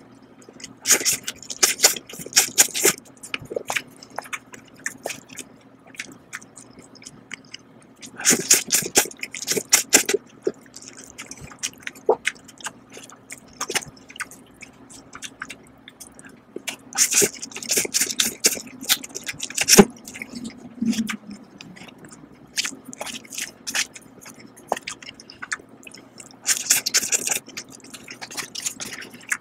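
Slurping and chewing instant bowl noodles: four loud, wet slurps roughly every eight to nine seconds, with softer chewing and small clicks between them.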